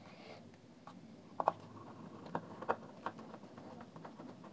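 Small hand screwdriver driving a tiny screw into a plastic speaker housing: faint, irregular clicks and ticks as the tool turns and seats in the screw head.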